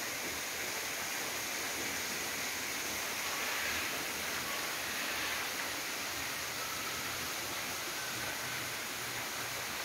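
Steady rush of water falling down an artificial rock-wall waterfall, with a few short, faint chirps over it.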